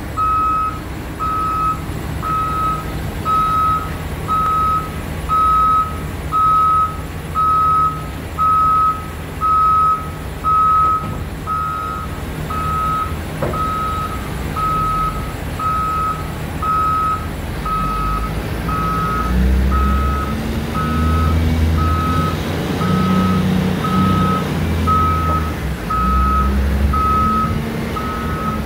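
Backup alarm beeping steadily, a little over one beep a second, on a Hoist P300 30,000 lb diesel forklift climbing trailer ramps. Its engine runs low underneath and works harder and louder from about two-thirds of the way through as the machine climbs.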